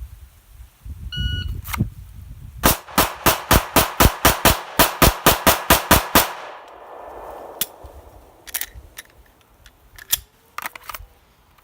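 A shot-timer beep, then a rapid string of about fifteen 9mm pistol shots from a Glock 34 with its factory recoil spring, about four shots a second over three and a half seconds, then a few light clicks of handling.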